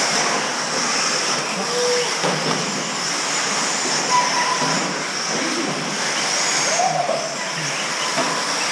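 Several electric RC buggies racing on a clay track: a steady wash of high motor and gear whine mixed with tyre noise, with no clear rhythm.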